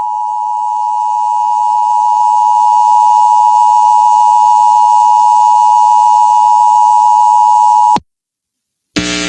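Emergency Alert System two-tone attention signal, two steady tones sounded together (853 and 960 Hz), held for about eight seconds and cutting off abruptly. It signals that an emergency alert message follows, here a tornado warning. A voice starts reading the alert near the end.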